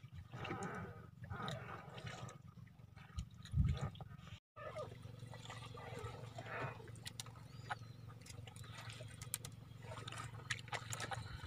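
Water splashing and sloshing in a tub of freshly caught fish, with the fish flapping, over a steady low hum. After a cut about four and a half seconds in, small clicks and rustles follow as a fishing handline is hauled in by hand.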